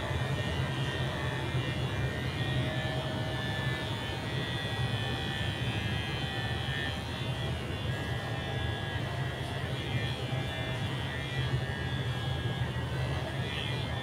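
A steady low mechanical hum that does not change, with faint higher tones above it.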